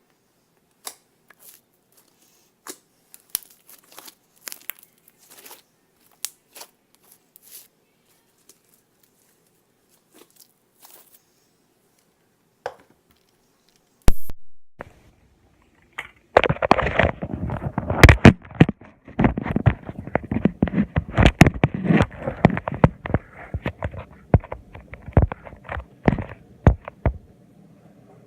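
Slime being handled: scattered faint clicks at first, a sharp knock about halfway through, then a long run of loud, dense crackling and popping as the slime is squeezed and pressed.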